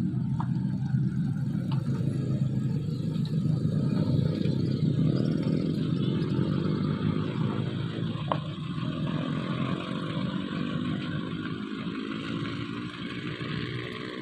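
Heavy truck's diesel engine running, its pitch falling slowly through the middle and the sound fading toward the end, with a few light clanks.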